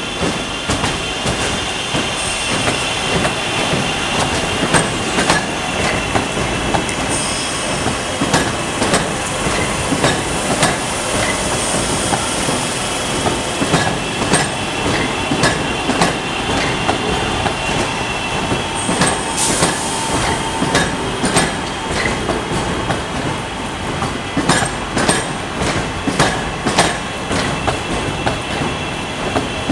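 Train wheels running on the rails: a continuous rumble with many sharp clicks, and a steady high-pitched wheel squeal that fades about two-thirds of the way through.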